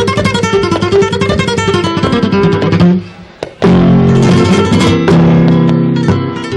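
Flamenco acoustic guitar playing a cantiñas passage: fast picked notes for about three seconds, a brief break, then ringing strummed chords.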